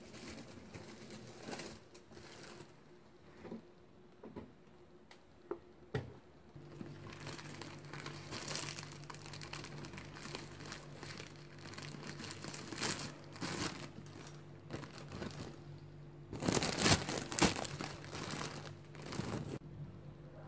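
Plastic bread bag crinkling and rustling as it is handled, opened and a slice is pulled out, with a few light clicks at first and the loudest rustling near the end.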